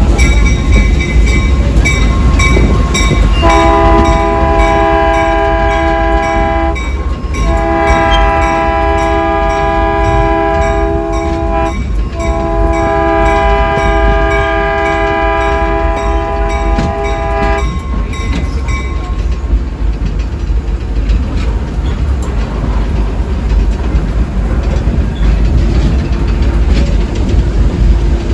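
Train horn blowing three long blasts, a chord of several steady tones, over the continuous low rumble of a train going by.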